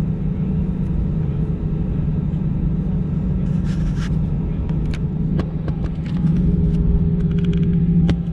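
Airbus A320 cabin noise while taxiing: the steady low drone of the jet engines near idle under a rumble from the taxiway, with a few light clicks. About six seconds in, a higher steady hum joins and the sound grows a little louder.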